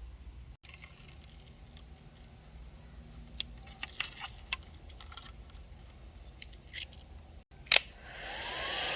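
Scattered light clicks and ticks of handling, then a sharp click as a hot-air blower is switched on near the end. Its fan spins up with a rising whine into a steady blowing rush, used to heat the adhesive on the back of a carbon fiber trim overlay.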